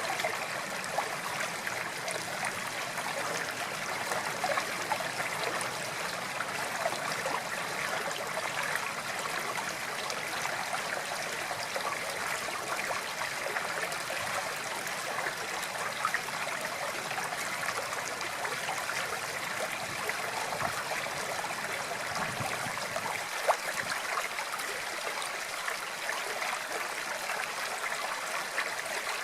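Flowing water running steadily, a continuous even rush and trickle.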